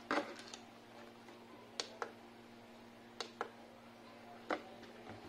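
Several sharp plastic clicks and light taps, about six in all, from a home theater's front-panel button being pressed and its circuit board and plastic bracket being handled, over a steady low hum.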